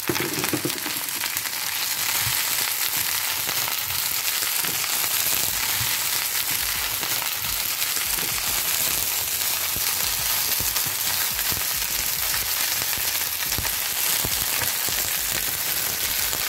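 Cut okra and onions sizzling steadily in hot oil in a frying pan while being stirred with a wooden spatula.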